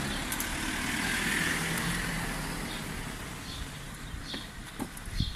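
A car passing on the street: tyre and engine noise swells over the first second or so, then slowly fades away. A few faint ticks are heard near the end.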